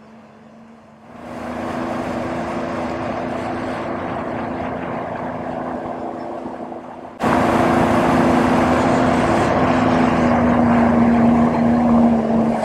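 A Sea-Doo GTX 155 jet ski's four-stroke engine idling quietly, then opening up about a second in and running steadily, with water rushing past the hull. About seven seconds in the rush of water and wind suddenly gets much louder.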